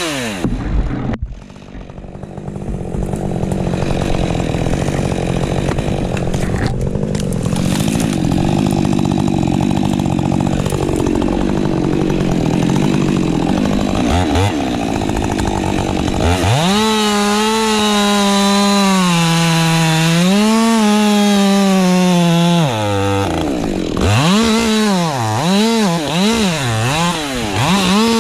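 Ported Husqvarna 550 XP Mk II two-stroke chainsaw. It blips the throttle at the start, then runs lower and rougher for a long stretch. It is then held high, with the pitch dipping and recovering as it cuts, and ends with more quick throttle blips.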